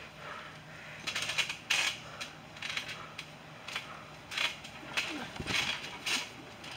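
Backyard trampoline's steel springs and mat creaking and clinking in short, irregular bursts as two people shift their weight and grapple on it, with a brief grunt about five seconds in.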